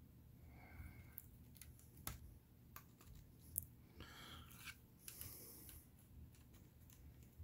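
Faint handling noise of a hard plastic action figure: a few light clicks and rustles as its jointed arm and blade-hand accessory are worked by hand.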